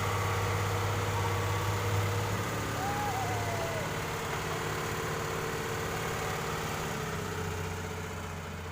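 Excavator diesel engine running steadily at idle, a low even hum. A short wavering tone sounds about three seconds in, and the engine's pitch drops slightly near the end.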